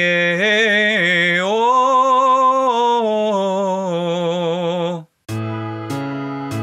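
Male voice singing a chest-voice vocalise on 'Rie-e-e-o', sliding up to a held note with vibrato, then easing down and stopping about five seconds in. After a brief gap, an instrumental backing of chords comes in.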